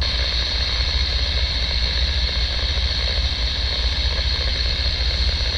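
Distant diesel freight locomotives running out of sight, heard as a steady low rumble, with a steady high-pitched drone above it.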